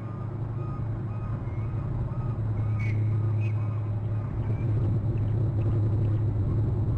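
Steady low rumble, with a regular beeping about twice a second for the first three seconds and two brief high chirps around the middle.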